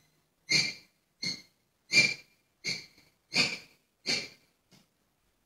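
A man's breathy laughter close to a headset microphone: seven short puffs of breath about two-thirds of a second apart, with silence between them.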